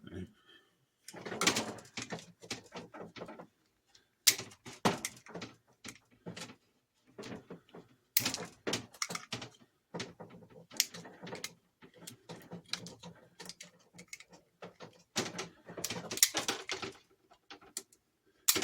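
Knife blade scraping and slicing along scrap copper wire, peeling the insulation off in irregular strokes with short pauses between them.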